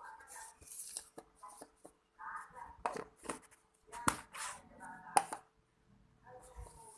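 Hands working a batch of homemade slime, with a string of sharp sticky clicks and pops. The loudest come about three, four and five seconds in, and a voice talks quietly between them.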